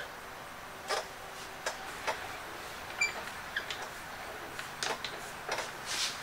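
Hand brace turning an auger bit that bores into the wooden side of a workbench: quiet, irregular clicks and creaks as the bit cuts, with a short high ring about halfway through.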